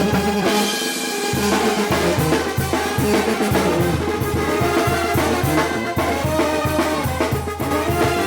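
Mexican brass band (banda) playing: trumpets and trombones carry the melody over drums. A bouncing low bass line comes in about a second in.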